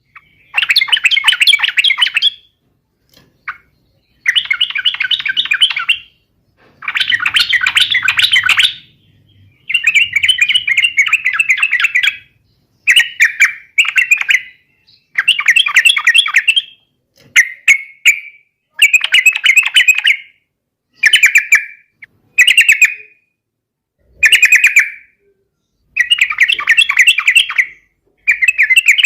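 Yellow-vented bulbul (trucukan) singing in full song: a run of loud, bubbly, warbled phrases, each up to a couple of seconds long, repeated with short pauses between.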